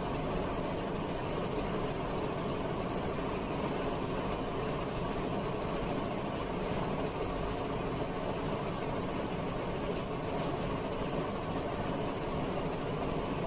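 Steady droning background noise with no breaks or distinct events.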